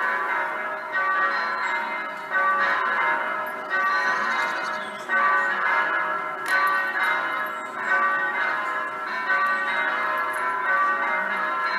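Electronic (simulated) church bells from an eight-bell set tuned in B, ringing a peal: several bells strike in close, irregular succession, each hum ringing on under the next stroke.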